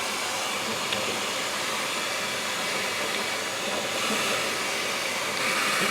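GHD Air 1.0 hairdryer running steadily on a test run before servicing, a continuous rush of blown air and fan motor that shows it works. It grows a little louder near the end.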